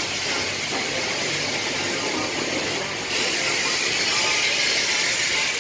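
High-pressure spray from a self-serve car-wash wand, a steady hiss of water jetting onto the truck and the wet floor, getting louder about three seconds in.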